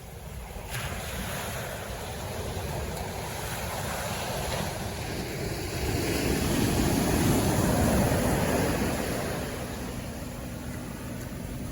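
Ocean surf on a beach: a wave breaks and washes up the sand, swelling about halfway through and then fading, with wind rumbling on the microphone.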